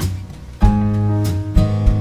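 Background music: an acoustic guitar strumming chords, with new chords struck about half a second in and again near the end.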